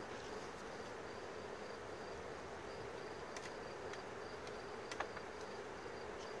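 Honeybee colony humming steadily from an open hive box, with a high chirp repeating a few times a second in the background and a couple of sharp clicks, the strongest about five seconds in.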